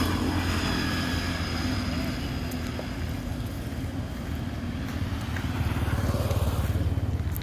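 A motor engine running steadily nearby, a low hum that grows louder about five and a half seconds in.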